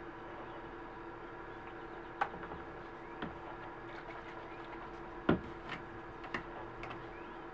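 Light clicks and taps of small objects being handled by gloved hands at a dyeing work table, about six in all, the loudest a little past the middle, over a steady background hum.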